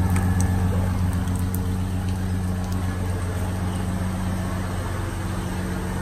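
Ford F-150's 4.9-litre straight-six engine idling, a steady low hum.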